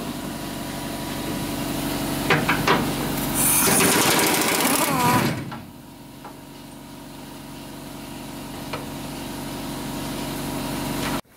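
Pneumatic wrench on a long extension spinning a truck bed mounting bolt, loudest for about two seconds near the middle, over a steady mechanical hum. A few clicks come before it, and the sound cuts off suddenly near the end.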